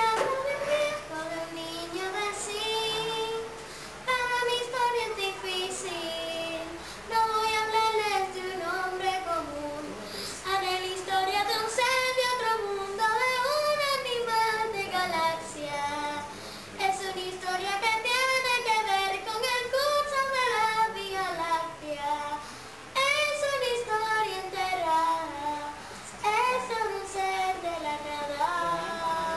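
A child singing a melody in long phrases that rise and fall, with no clear instrumental accompaniment.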